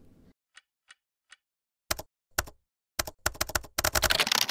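Computer keyboard typing: a few faint key taps, then two louder keystrokes, then a quick run of key presses that thickens into fast, continuous typing near the end.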